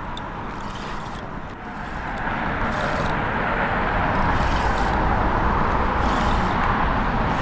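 Road traffic passing on the bridge: a steady tyre-and-engine rush with a low rumble, growing louder about two seconds in as a vehicle comes closer.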